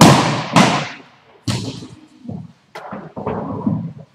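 Sharp knocks of broomball play: brooms striking the hard ball and the ball hitting the rink boards. Two loud cracks come right at the start, about half a second apart, then several softer knocks, each ringing on briefly in the hall.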